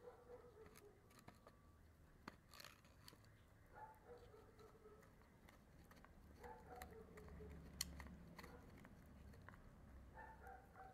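Small shaggy dog gnawing a large dried bone: faint scraping and scattered sharp clicks of teeth on bone, the sharpest about eight seconds in.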